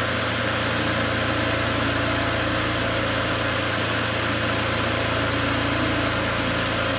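Wood lathe running with a steady hum and hiss while a hand-held lathe knife takes a light shaving cut on the spinning wooden spindle, hardly touching the wood.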